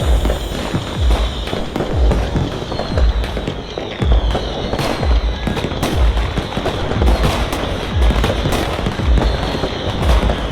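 Fireworks bangs and crackles, with music keeping a deep thump about once a second underneath.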